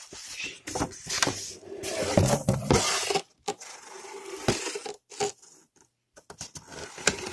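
Irregular knocks, clatter and scraping as an air fryer's parts and packaging are handled and pushed back into the box, loudest about two seconds in.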